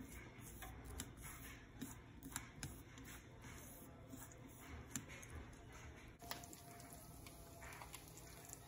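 Faint, scattered clicks and taps of wooden chopsticks stirring sliced onions in a frying pan. About six seconds in, these give way to soft handling sounds of a knife spreading butter on a bun.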